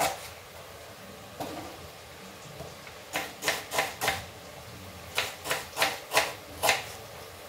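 Kitchen knife slicing an onion on a wooden chopping board: sharp knocks of the blade on the board, a single stroke or two and then two quick runs of four or five slices.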